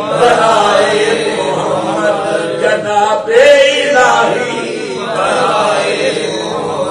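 A man chanting a verse of an Urdu devotional poem in long, drawn-out melodic phrases through a microphone and loudspeakers.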